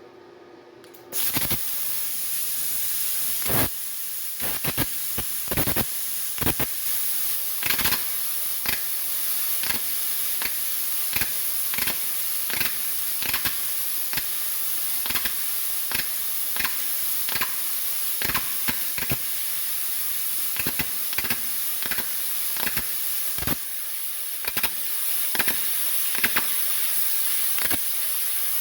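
A 60 amp plasma cutter torch fires about a second in, then runs with a steady loud hiss of air and arc, broken by irregular crackles and pops as it cuts metal.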